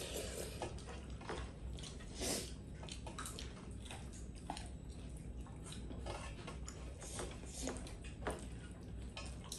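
Eating sounds: fingers mixing rice on metal plates, with chewing and lip smacks, heard as irregular soft clicks and smacks, the loudest about two seconds in.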